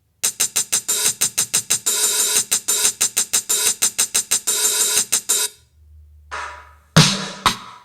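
Electronic music: a drum-machine hi-hat roll, a fast even run of crisp hits about six a second, lasting about five seconds. It breaks off into a low bass note, then two sharp drum hits near the end.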